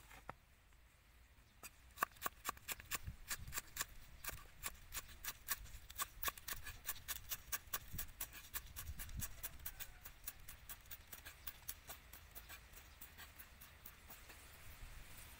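Cleaver chopping green onions on a round wooden chopping board: a quick, steady run of sharp knocks beginning about two seconds in, growing fainter and sparser in the last few seconds.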